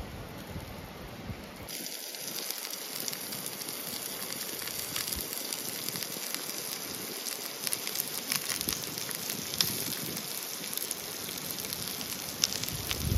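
A shallow river babbling over stones: a steady rush of water with many small splashes and ticks through it. The sound changes abruptly about a second and a half in.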